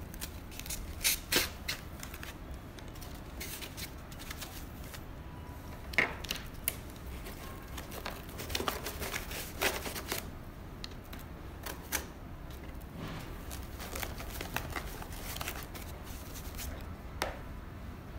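Switch panel kit parts and their packaging being handled and packed back into the box: scattered clicks, light knocks and rustling, irregular throughout, with a few sharper knocks.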